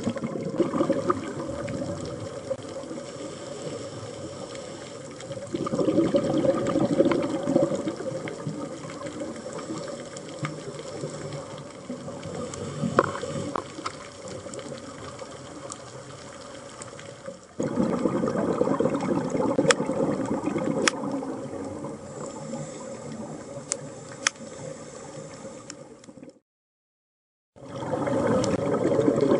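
Underwater sound through a dive camera: a steady water rush and a constant hum, with three louder surges of bubbling several seconds apart, the rhythm of a scuba diver exhaling through the regulator. The sound drops out for about a second near the end.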